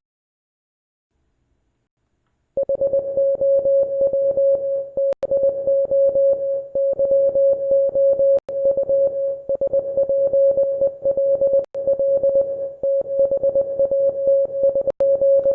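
International Morse code sent as a single steady beep tone, keyed on and off rapidly in dots and dashes. It starts about two and a half seconds in, with brief pauses every few seconds.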